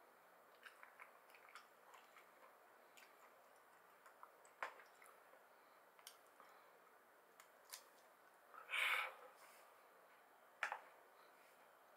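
Faint, scattered small clicks and pops of edamame pods being squeezed open at the mouth and the beans eaten, with one louder brief rustle about nine seconds in.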